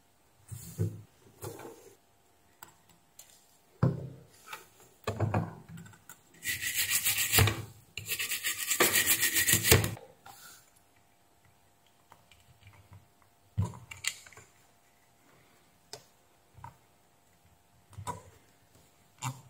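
Hands working on a circuit board: scattered knocks and clicks, then two spells of fast scrubbing, each about a second and a half long, around the middle, which are the loudest part. After them come a few light clicks and taps as a test clip is handled.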